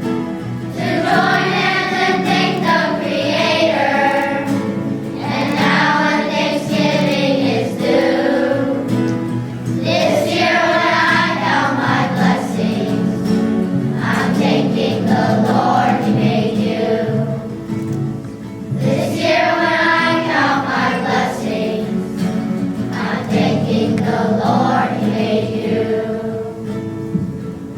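A children's choir singing a song in long phrases, with musical accompaniment.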